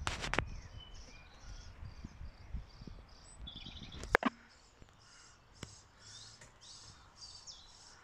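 Small bird chirping over and over, short high chirps at about two a second. A sharp click, the loudest sound, comes about four seconds in.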